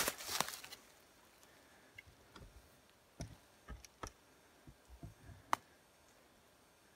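A brief rustle, then a few faint, irregular clicks and taps, about eight of them spread over several seconds.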